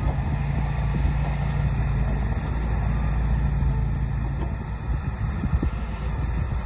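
Diesel engine of earthmoving machinery running steadily, a low hum and rumble, with a few faint knocks near the end.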